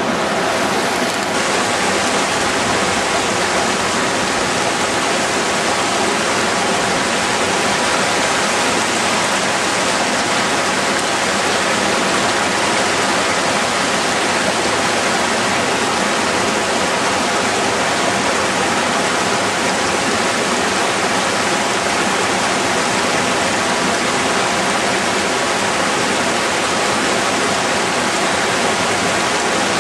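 Mountain stream rushing over rocks and pouring down a small cascade: a steady rush of water.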